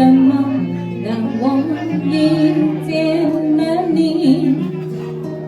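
Music: a slow pop ballad's accompaniment with steady held bass notes under a wavering melody line.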